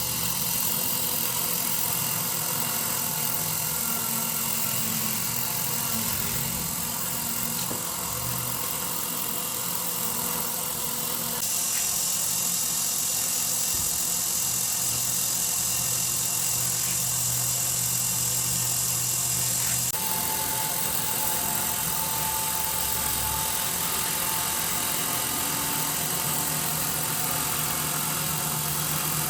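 A motor running steadily, as of a workshop power tool, with a constant high hiss over a low hum; its tone shifts about 11 seconds in and again about 20 seconds in.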